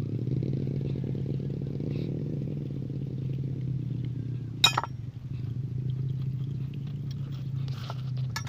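An engine running steadily at an even speed, with one sharp click a little past halfway.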